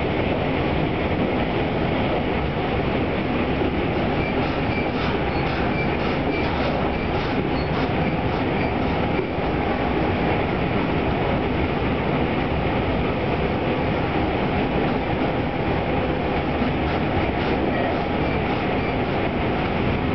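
Tobu 200 series limited express electric train running at speed, heard from the motor car's vestibule deck: a steady rumble of wheels on rail with clusters of rail-joint clacks. The car rides on bogies and traction motors reused from the 1720 series Deluxe Romancecar, with its low-pitched high-speed gearing.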